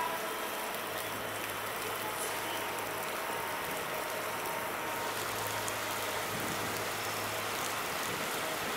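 Steady rain falling, an even hiss, with a faint low hum underneath.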